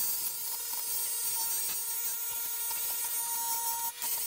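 Bench grinder running with a non-woven abrasive pad wheel, an aluminium Pro Circuit Shorty silencer pressed against it: a steady motor whine over the hiss of the pad rubbing the metal, dipping briefly near the end.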